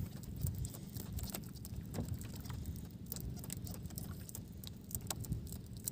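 Water lapping and splashing against the hull of a small outrigger boat, with irregular small splashes and a low wind rumble on the microphone.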